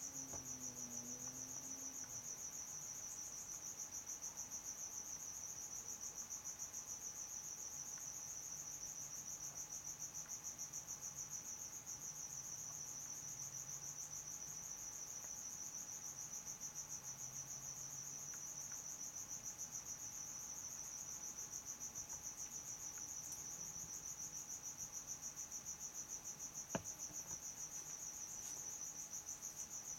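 A cricket chirping steadily, a high-pitched trill repeated evenly a few times a second, with a single sharp click near the end.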